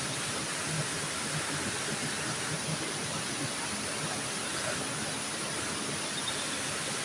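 River water flowing steadily, an even, unbroken rush of noise.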